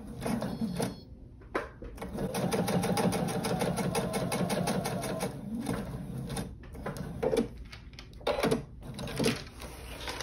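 Domestic electric sewing machine stitching binding onto a quilted potholder: a steady run of rapid, even needle strokes that starts about two seconds in and stops about four seconds later. A few separate clicks and knocks follow.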